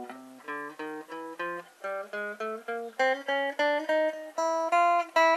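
Electric guitar (Strat-style) played clean, single notes picked one at a time about four a second in an up-then-down alternate-picking exercise, the pitch stepping upward from string to string.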